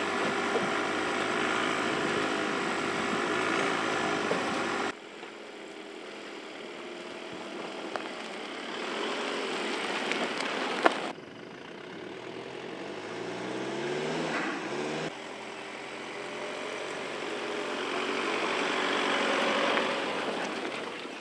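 Volkswagen Passat Alltrack driving slowly over grass tracks, its engine running at low speed, with the sound changing abruptly a few times between takes. The engine pitch climbs as it speeds up, with a sharp click about eleven seconds in.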